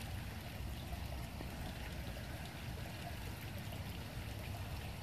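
Steady, fairly quiet rushing background noise with no distinct events.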